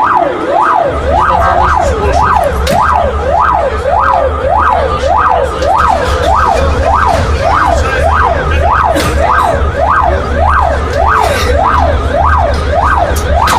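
Ambulance siren in a fast yelp, its pitch sweeping up and down nearly twice a second. A steady low drone runs underneath from about a second in.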